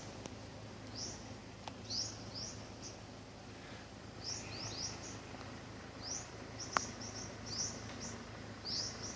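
Small birds chirping, with short, high, rising chirps repeated in quick clusters throughout. There is a sharp click about seven seconds in.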